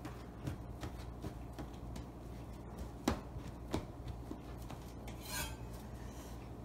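Hands rolling a log of bread dough back and forth on a plastic cutting board: a soft, faint rubbing with a few light knocks. Near the end, a short scrape as a metal bench scraper is picked up off the counter.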